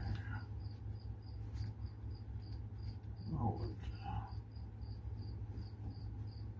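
A cricket chirping steadily, about three chirps a second, over a low steady hum. A brief, short sound comes about three and a half seconds in.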